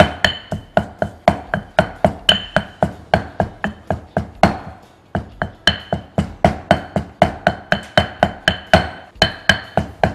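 Granite pestle pounding dried red chillies in a granite mortar, the first stage of a curry paste: a steady run of sharp knocks, about three to four a second, with a short break near the middle.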